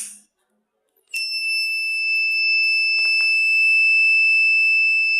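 Buzzer of a homemade fire-sensor alarm circuit sounding one steady, unbroken, high-pitched tone from about a second in, set off by a lighter flame held to its heat sensor. A short click comes just before it.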